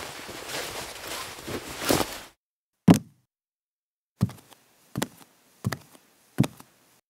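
Cartoon sound effects: a rustling swish of bedclothes being thrown back for about two seconds, then a single thump of getting out of bed, then four evenly spaced footsteps, about one every 0.7 s.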